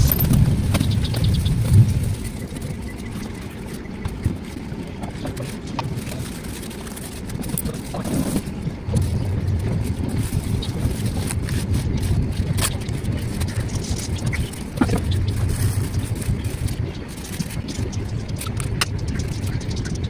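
A low, steady rumble in the background, with scattered light clicks and rustles as small fuel-filter parts and tissue paper are handled.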